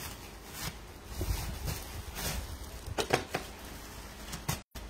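Rustling and knocking of clothes and a plastic sack being handled and rummaged through, in a series of short sharp noises. The sound cuts out for an instant near the end.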